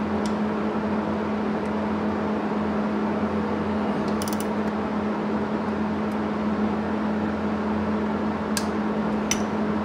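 A steady mechanical hum fills the background. A few light metallic clicks come about four seconds in and twice near the end, as the alternator's housing bolts and a nut driver are handled.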